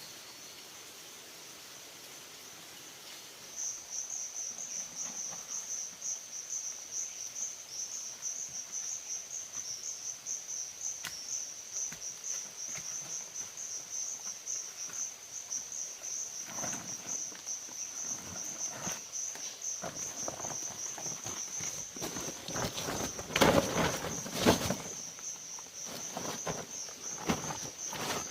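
Insects chirring in a steady, fast high trill that starts a few seconds in. In the second half come scattered rustling and knocking sounds, the loudest a pair of knocks a little past two-thirds of the way through.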